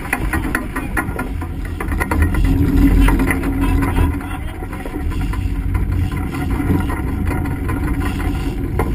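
Game-fishing boat's engines running hard, with water rushing and splashing against the hull and stern. The engine sound swells about two and a half seconds in, then settles.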